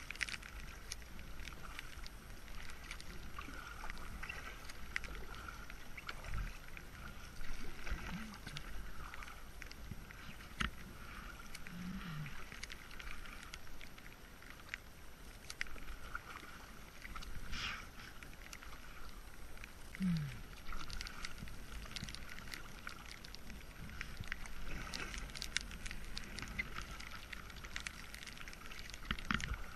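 Kayak paddling on calm river water: paddle blades dipping and splashing, water dripping, with scattered small ticks and a low rumble underneath.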